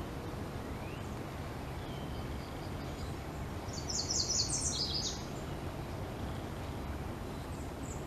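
Downy woodpecker whinny: a quick run of high, sharp notes, lasting about a second and a half a little before the middle, dropping lower toward its end. It sounds over a steady low background rumble.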